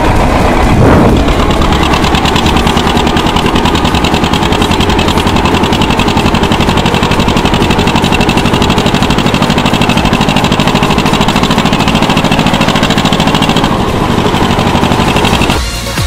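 Tractor diesel engine running at a steady speed, a fast even clatter, heard from on board the tractor. It cuts off just before the end as electronic music comes in.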